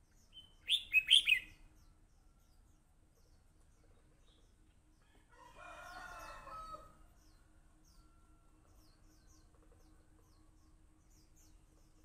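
A red-whiskered bulbul sings one short, loud phrase of quick whistled notes about a second in. A few seconds later a rooster crows, fainter and longer, over a faint steady hum.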